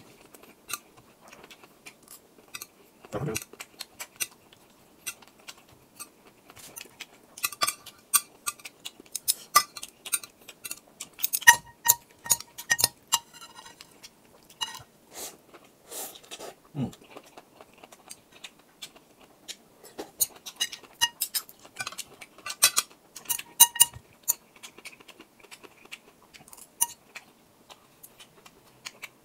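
Chopsticks and a spoon clinking and tapping against glass bowls while eating noodles: many short, sharp clinks that ring briefly, coming in busy clusters.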